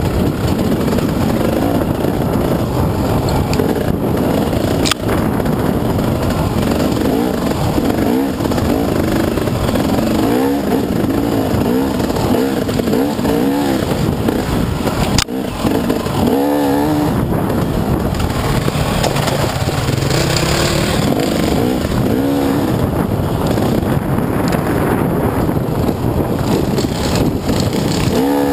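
Dirt bike engine revving up and down repeatedly as it is ridden over a rough trail, with wind buffeting the helmet-mounted microphone. A couple of sharp knocks cut through, once about five seconds in and again about halfway.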